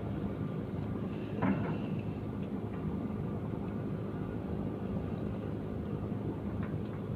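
A steady low engine drone, with a short higher squeak about one and a half seconds in.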